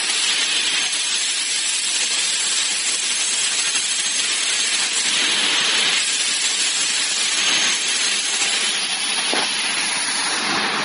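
Maka PA37 CNC profile machining centre running while working an aluminium extrusion: a steady hiss.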